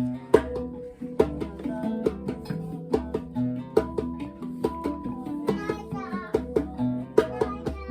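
Live acoustic music: plucked strings struck in a steady, quick rhythm over a low bass line.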